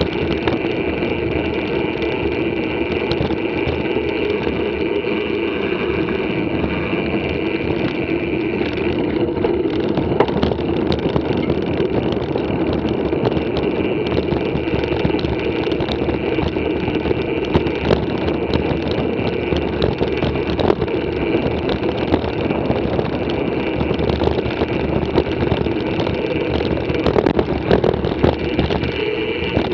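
Steady rushing rumble of a mountain bike rolling along a concrete track, heard through a camera mounted on the bike, with frequent small knocks and rattles from bumps, a cluster of them near the end.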